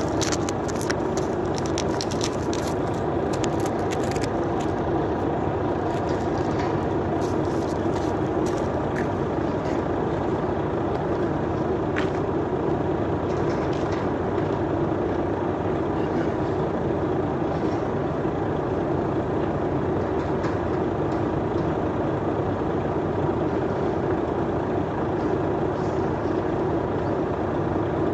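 Heavy diesel engine running steadily, with a scatter of sharp clicks and knocks in the first few seconds and another sharp click about twelve seconds in.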